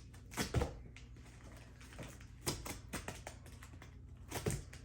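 Cardboard shipping box being handled and opened: scattered clicks and knocks, the loudest about half a second in and a double knock near the end.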